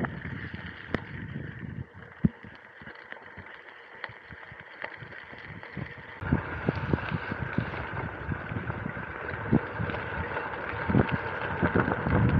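Loaded bicycle rolling on a wet gravel path: tyres hissing and crunching over the wet surface, with scattered sharp clicks and taps from the bike. It gets louder about halfway through, when a faint steady hum joins in.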